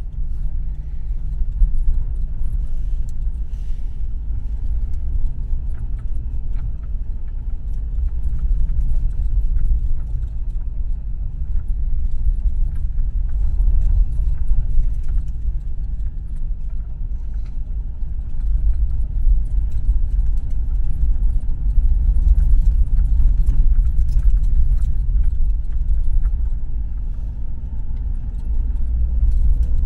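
Steady low rumble of a vehicle's engine and tyres heard from inside the cabin while driving, with light scattered rattling of loose fittings.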